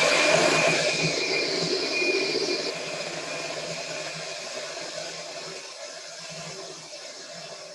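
Electric hand mixer running at high speed, its beaters whipping heavy cream in a glass bowl. A steady motor whir that fades gradually, its higher hiss dropping away about three seconds in.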